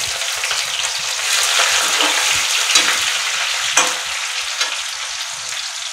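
Chopped onions sizzling as they hit hot oil in an aluminium kadhai, a loud frying hiss that starts at once, then eases somewhat over the last couple of seconds. A couple of sharp metal clinks about halfway through.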